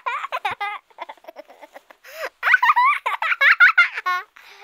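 A high-pitched human voice giggling and squealing in quick rising-and-falling calls, loudest in the second half.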